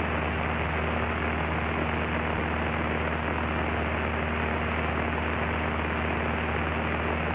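Cabin noise of a Cessna 152 in level cruise: the four-cylinder Lycoming engine and propeller give a steady, unchanging drone with a low hum under a wash of noise.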